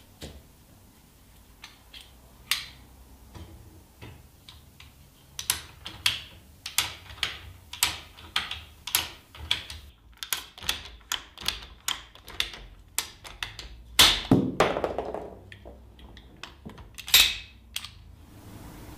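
Red hand-held plastic pipe cutter being squeezed onto blue plastic pipe: a run of sharp clicks about two a second from the handles and mechanism, then a louder crunching snap about fourteen seconds in and another a few seconds later as the blade bites through the pipe.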